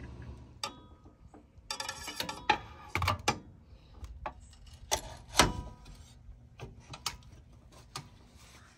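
Metal clanks and clicks of a chrome tubular step brace being fitted against an Airstream's folding metal steps and frame. A string of sharp knocks, some ringing briefly, with a short rattle about two seconds in and the loudest clank about five seconds in.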